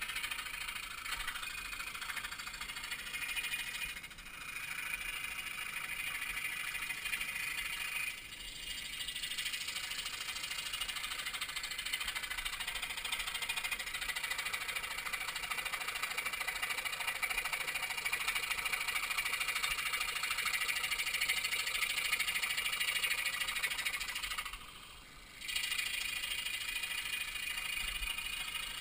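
Scroll saw running, its blade rattling up and down as a small wooden piece is fed through it. The sound briefly drops away three times, longest near the end.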